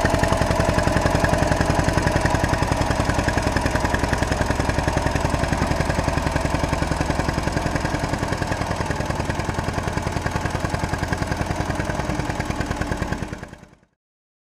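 Small tractor's engine running steadily with an even, rapid chugging pulse while it pulls a rear grader blade through loose soil; the sound fades out near the end.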